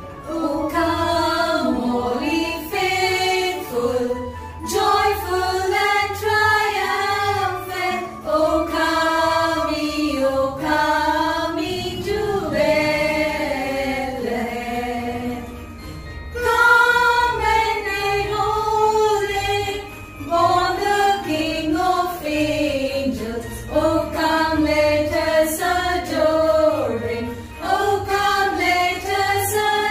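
A group of women singing Christmas songs together in unison, phrase after phrase with short breaks between lines.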